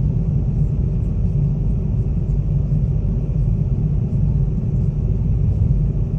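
Steady low rumble of a road vehicle, unchanging in level.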